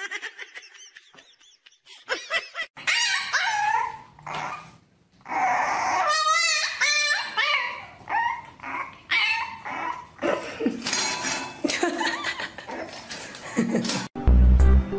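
A dog whining and yipping in a run of gliding, wavering calls. Music with a heavy bass comes in near the end.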